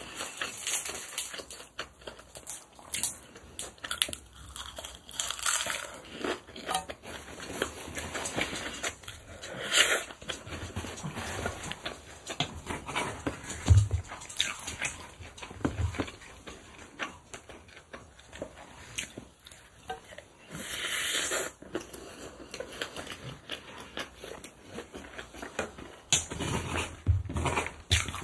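Close-miked mouth sounds of eating spicy kimchi bibimbap wrapped in roasted seaweed: chewing, crunching and wet smacks in an irregular run of clicks. Now and then a wooden spoon scrapes through the rice in the ceramic bowl, and a louder rush of noise lasts about a second some twenty seconds in.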